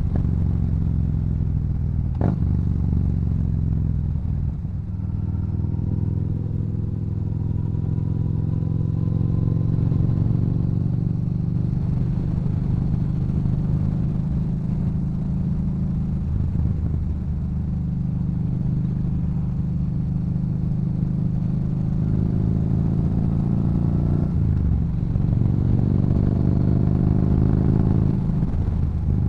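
Yamaha Bolt's air-cooled V-twin running through a Cobra aftermarket exhaust under way, its pitch rising a couple of times as the bike accelerates, with a sharp click about two seconds in.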